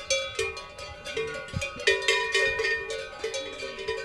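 Several cowbells on grazing cattle clanking irregularly, with overlapping ringing strikes at a few different pitches.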